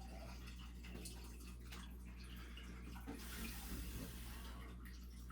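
Faint water hiss from a shower valve with a steady low hum underneath. The hiss swells briefly about three seconds in, along with a few small clicks.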